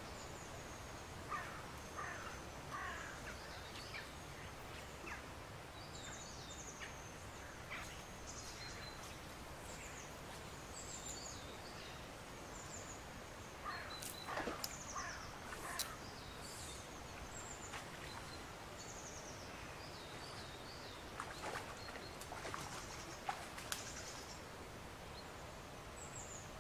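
Small songbirds singing, short high chirps and trills repeated all through, over a steady outdoor hiss. A few brief louder knocks and scrapes come about halfway through and again a few seconds before the end.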